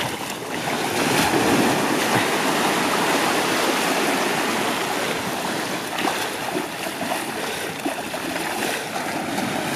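Steady rush and splash of shallow water at the shoreline, churned as a small bull shark is hauled in through the wash.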